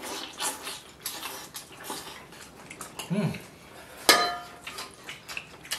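Chopsticks clicking against ceramic bowls and a serving plate during a meal, with one louder clink about four seconds in that rings briefly. A short hummed "mm" is heard about three seconds in.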